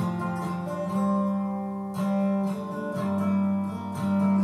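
Acoustic guitar strummed, a chord about once a second, each left to ring.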